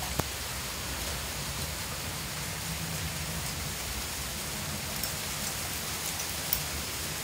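Heavy rain falling steadily in a thunderstorm, with a few sharp ticks standing out near the start and later on.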